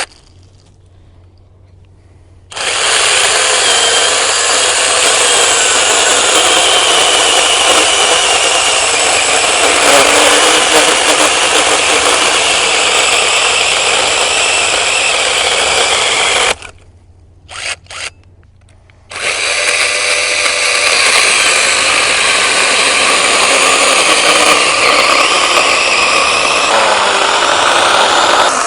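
Orblon 6-inch brushless battery mini chainsaw cutting into a branch thicker than its bar. It starts about two and a half seconds in and runs steadily under load for about fourteen seconds, stops, gives two short blips, then cuts again.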